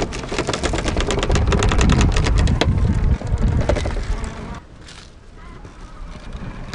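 Traxxas TRX-4 RC crawler driving over rough ground: rapid crackling and clicking over a low rumble, which drops away to a quieter rumble about four and a half seconds in.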